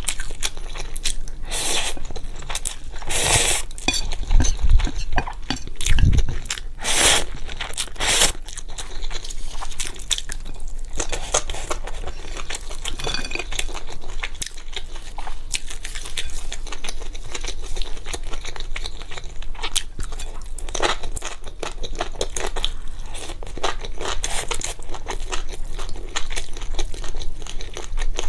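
Close-miked eating sounds: chewing and crunching on fried skewers and spicy fire noodles, with chopsticks and bamboo skewer sticks clicking against the plate. A few louder crunchy bites come in the first several seconds.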